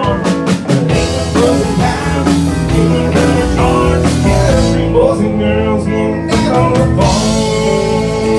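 Background music: a song with a singer and guitar accompaniment.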